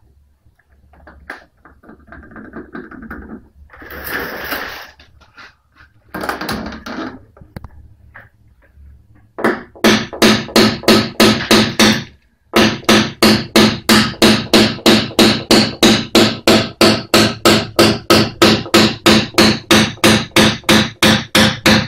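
PDR hammer tapping a knockdown punch against the steel front fender of a Lada Granta: after some quieter handling noises, a fast, even run of light taps starts about nine seconds in, about four a second, each with a short metallic ring, with one brief pause. The taps are knocking down a raised fold along the crease a millimetre at a time.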